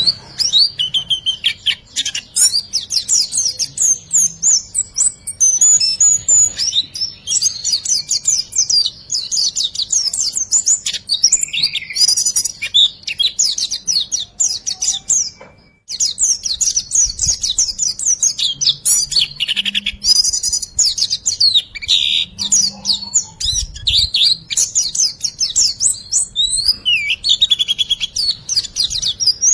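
A songbird's rapid, high chattering song of quick chirps and whistles, the 'riwikan' style of song used as a tutor recording for keeping white-eyes. The song breaks off for a moment a little past halfway, then goes straight on.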